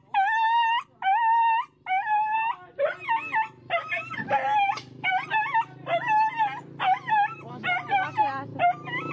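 A dog howling and yelping in pain from a machete wound to its leg. First come four long, drawn-out high cries, then from about three seconds in, quicker wavering yelps, about two a second.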